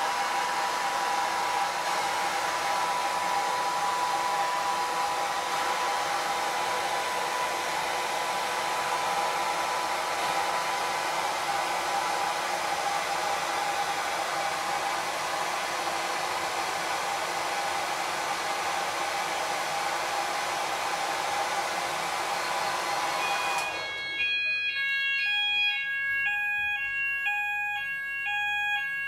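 Hand-held hair dryer blowing hot air onto a multi-sensor fire detector, a steady rush with a thin whine, for about 24 seconds. It then cuts off and the addressable fire alarm's sounders start a pulsing alarm of alternating tones, the detector having been set off by the heat.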